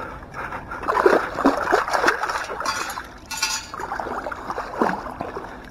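Shallow lake water splashing, sloshing and gurgling as it is stirred up by someone working in it. The splashes come irregularly and are loudest about a second in and again near the end.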